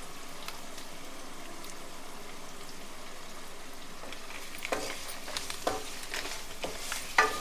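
Potatoes, capsicum and chilli powder frying gently in oil in a nonstick kadai, a steady faint sizzle. A little past halfway a wooden spatula starts stirring, scraping and knocking against the pan in irregular strokes, the loudest near the end.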